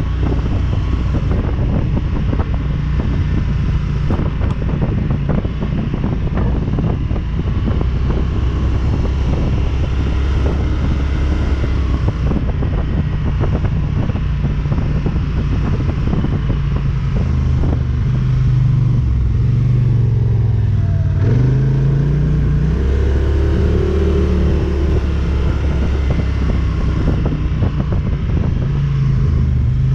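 ATV engine running while riding, its pitch falling and then rising again about twenty seconds in as the throttle changes.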